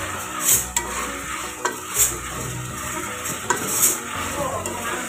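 Diced potatoes frying in oil in a metal pot, sizzling while a spoon stirs them and scrapes the pot, with the loudest scrapes about half a second, two seconds and three and a half seconds in.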